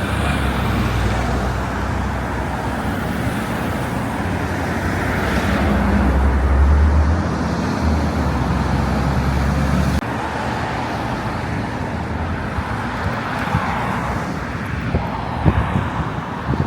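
Road traffic on a busy street: cars driving past, with a louder low engine sound peaking about six seconds in.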